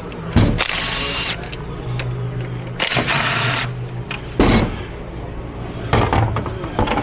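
Power tool, like a drill/driver, run in two short bursts about two seconds apart, with a clunk a little later, as parts come off a transmission being disassembled.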